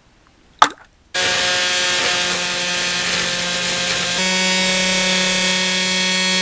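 Ultrasonic cleaner running with turbocharger wheels and shaft in its bath: after a click, a loud steady electric buzz with a hiss from the cavitating liquid starts about a second in. Its tone shifts slightly partway through, and it cuts off suddenly near the end.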